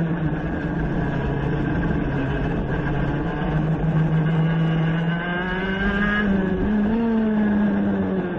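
High-revving race engine heard onboard, held at steady revs through a long corner, then rising in pitch in short steps as it is shifted down from fourth to second gear about two-thirds of the way through.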